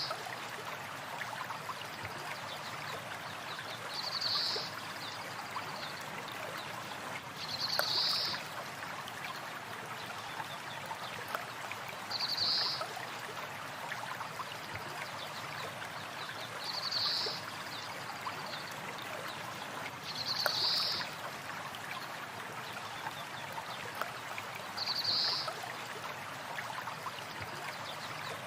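Stream water running steadily, with a short, high bird call repeating about every four seconds.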